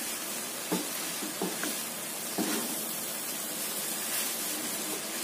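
Fried vermicelli and vegetables sizzling in a non-stick wok as they are stir-fried with a wooden spatula, with a few knocks of the spatula against the pan in the first half.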